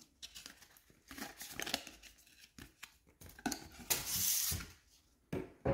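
Hands handling a plush wallet and its cardboard hang tag: soft rustles and clicks, with a louder scratchy rasp lasting under a second about four seconds in as the tag comes off, and a sharp click near the end.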